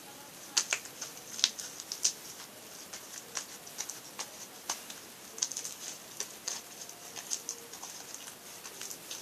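Sticky homemade glue slime being kneaded and stretched by hand, giving irregular small sticky clicks and pops, several a second.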